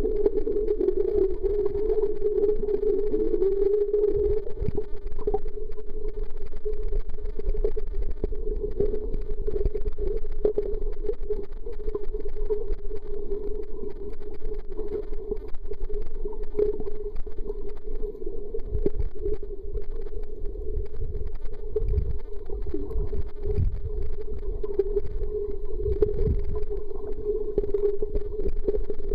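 Muffled underwater sound picked up through a camera's waterproof housing: a steady mid-pitched drone with irregular low thumps and rumbles, heavier near the end.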